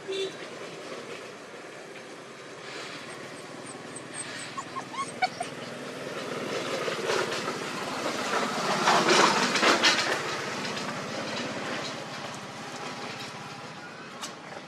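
A few faint, short puppy whimpers, then the noise of a passing vehicle that swells, is loudest about nine seconds in, and fades away.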